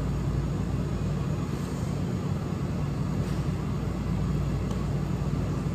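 Steady low mechanical hum and rumble of background noise, even in level throughout, with no speech.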